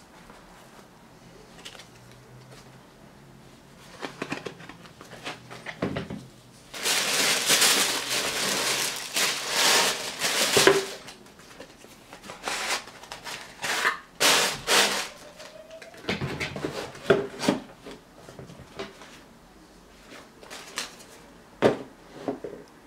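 Tissue paper crinkling and rustling as sneakers are handled in and around a cardboard shoebox, with light knocks and taps. The longest stretch of rustling comes about seven seconds in and lasts some three seconds, with another short burst about fourteen seconds in.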